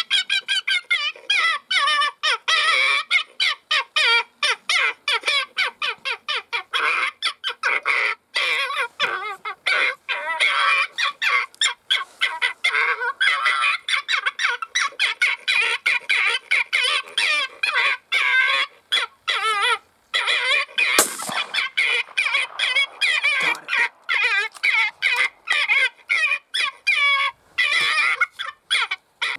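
Electronic predator caller playing a loud, unbroken run of rapid squawking bird distress calls, the wavering cries following one another several times a second.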